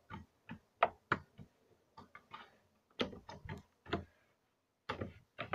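Pink butter slime being pressed and poked with the fingers, making a run of short sticky clicks and pops, a few a second, with quiet gaps between the groups.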